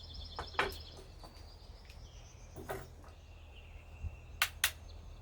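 Birdsong in the background, trilling and whistling, with a few short sharp clicks and knocks as the muzzleloader rifle is handled. The two loudest clicks come close together about four and a half seconds in.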